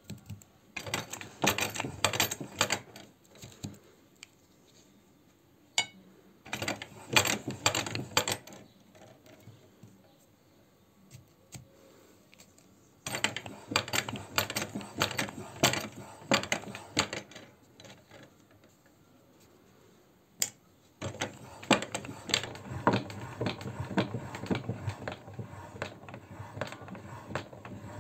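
Hand-cranked metal meat grinder being turned in four spells, rattling with rapid clicks as its auger grinds a frozen ice-cream bar.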